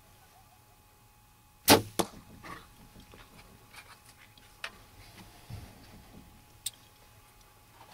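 A bow shot: a sharp, loud crack as the arrow is released, a second crack about a third of a second later, then soft rustling and a couple of small clicks.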